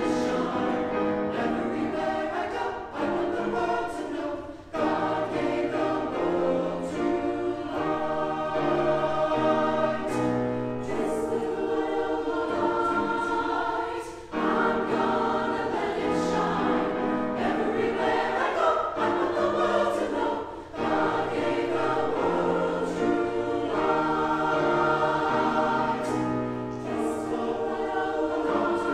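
Mixed choir of men's and women's voices singing a choral piece in harmony, in long sustained phrases with short breaks between them.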